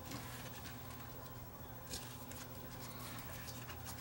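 Faint handling noise: a few light clicks and rustles as a test lead and probe are fitted to the terminals of a cylindrical lithium cell, over a steady low hum.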